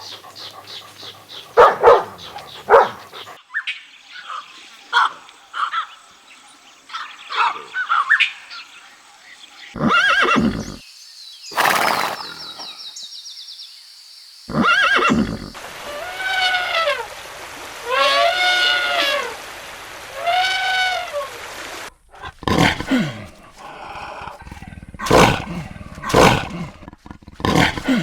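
A series of short animal-call clips cut one after another: repeated calls, some with an arching rise-and-fall in pitch, several distinct animals in turn.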